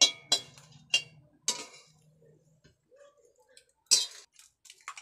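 Metal spatula clinking and scraping against an aluminium kadai while stirring dried red chillies being lightly fried. A few sharp clinks come in the first second and a half, then a louder one near four seconds.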